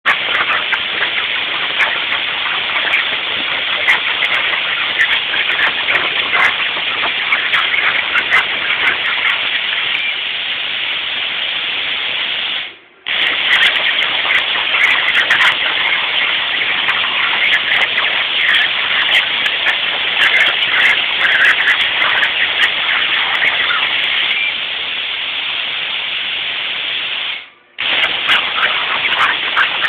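CNC plasma torch cutting 1/8-inch steel plate: a loud, steady hiss with crackling from the arc. It stops for a split second about halfway through and again near the end, then restarts.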